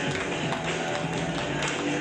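Played music with a steady beat, and people clapping along to it.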